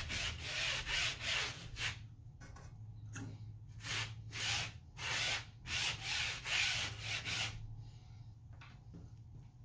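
Stiff bristle brush scrubbing wet denim in quick back-and-forth strokes, about two a second, working bleach solution into the fabric. The scrubbing stops about three-quarters of the way through.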